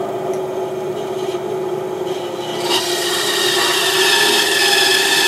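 Bandsaw running with a steady hum; a little over halfway through, the blade starts cutting into a wooden blank and a rasping cutting noise rises over the hum, the whole sound growing louder.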